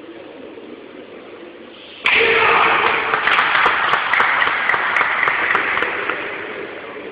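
A wooden beam breaks with a sudden crack about two seconds in. A crowd breaks at once into loud applause and cheering, which slowly fades toward the end.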